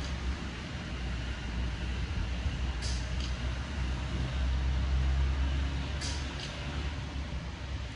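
Rainy-weather ambience: a steady low rumble that swells around the middle, an even hiss, and a short high swish about every three seconds.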